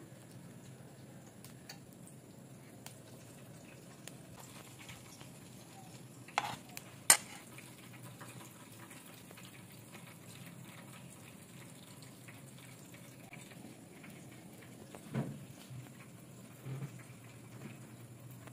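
A few sharp clinks of a metal spoon against a pan of diced bell-pepper filling, two close together about six to seven seconds in (the second the loudest) and softer ones near the end, over a low steady hum.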